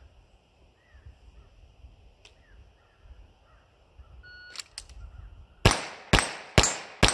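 A shot timer beeps, and about a second later a handgun fires four rapid shots about half a second apart at a rack of 6-inch steel plates. Faint birdsong comes before the beep.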